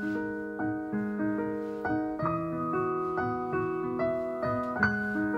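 Solo piano playing a gentle accompaniment of repeated chords at a steady pulse, roughly three a second. The harmony changes about two seconds in and returns near the end. It is a song's introduction, before any singing.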